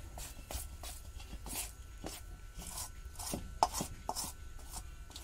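A hand mixing and pressing soft spiced dough in a stainless steel bowl: short, uneven slaps and scrapes of fingers on the dough and the steel, about three a second, one louder stroke past the middle.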